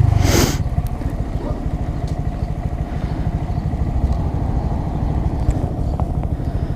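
Honda Grom's 125 cc single-cylinder engine running steadily while riding, with a brief rush of noise in the first half second.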